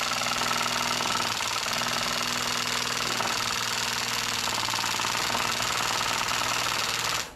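Cordless drill running steadily, spinning a priming shaft down a small-block Chevy 350's distributor hole, then stopping abruptly near the end. The shaft is spinning free, not reaching the oil pump's drive.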